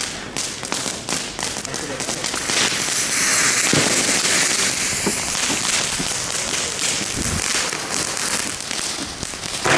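Fuses of small Nico Supreme Double Shot firework tubes hissing and crackling as they burn down, with many small pops. Near the end comes a sharp bang as a tube fires.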